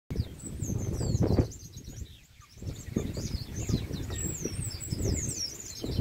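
Chopi blackbirds (pássaros-pretos) calling: a steady stream of quick, high whistled notes sliding up and down, several birds overlapping. A low rumble on the microphone runs underneath and is the loudest part, easing off briefly about two seconds in.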